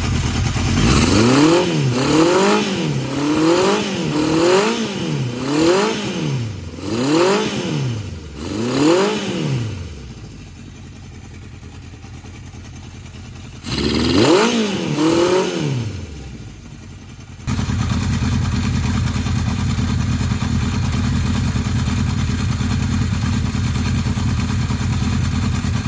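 Honda CB750Four air-cooled inline-four motorcycle engine being blipped, about one rev a second, for several seconds, then dropping back to a quieter idle. It is revved twice more, and past the middle it settles into a loud, steady run.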